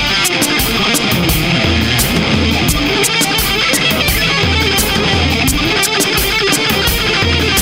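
Instrumental rock music with electric guitar over a steady drum beat; no singing.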